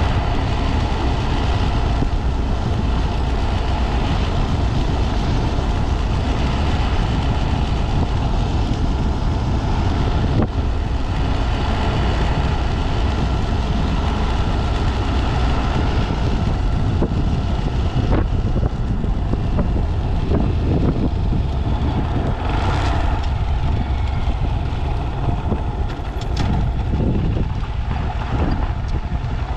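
Honda Z125 Monkey's small single-cylinder engine running during a ride, with heavy wind rumble on the microphone.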